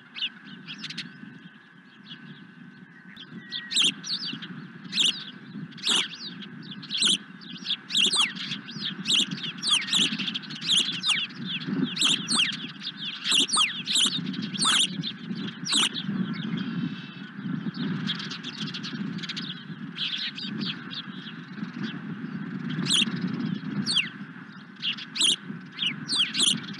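Osprey calling: a rapid series of sharp, high whistled chirps, each falling in pitch, about two a second. They start a few seconds in, thin out in the middle and pick up again near the end, over a low steady background rumble.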